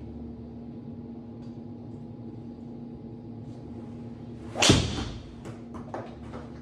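A golf driver swung with a short swish into one sharp, loud crack as the clubface strikes the ball off the hitting mat, about four and a half seconds in. A few lighter knocks follow.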